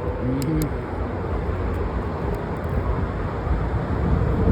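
Steady low rumble of vehicle noise, with a brief faint voice fragment near the start.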